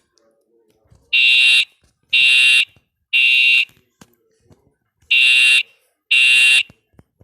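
Simplex TrueAlert fire alarm horn sounding in the temporal-three evacuation pattern: three half-second blasts, a pause, then two more blasts before it stops.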